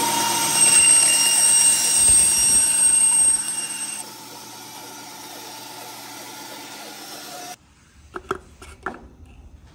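Bandsaw running while a paper cup is cut through on it, with a high whine over the motor and blade noise. About four seconds in the sound drops to a quieter steady run, then stops abruptly, followed by a few light handling clicks near the end.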